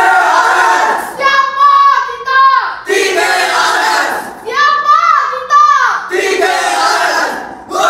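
A group of children chanting a war cry in unison: sung phrases that slide down in pitch at their ends alternate with loud shouted calls, about three of each.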